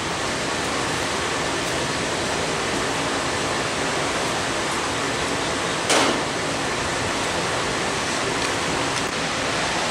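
Steady rushing noise, like a fan or air blowing, with one sharp click about six seconds in.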